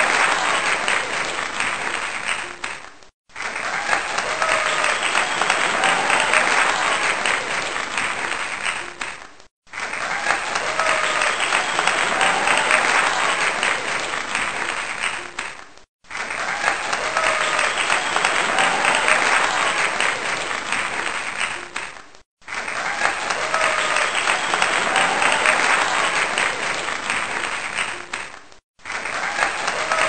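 Audience applause, many people clapping together. The applause fades out and starts again about every six seconds, with a brief silence each time.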